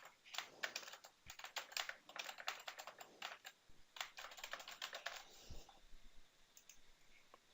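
Typing on a computer keyboard: quick runs of keystrokes while entering login credentials, stopping a little after five seconds in, with only a couple of faint clicks later.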